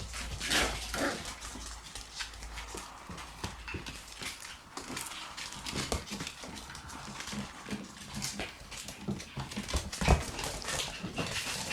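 Shiba Inu puppy scuffling at play with a kitten: many light taps and scrapes, with a sharper knock about ten seconds in.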